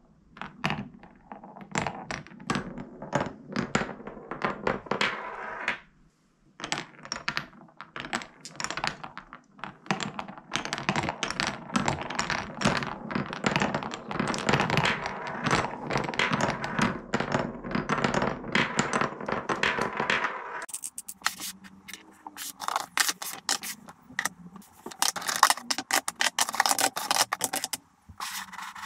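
Marbles rolling through the grooves and tunnels of a wooden Cuboro marble run, rumbling along the channels with many clicks as they drop and knock against the wooden blocks. About twenty seconds in this gives way to sharper clacking of the wooden blocks being handled and taken apart.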